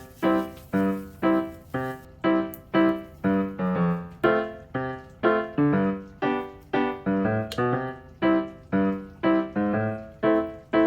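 Background music: a light keyboard tune of short, quickly fading notes, evenly spaced at about two to three a second.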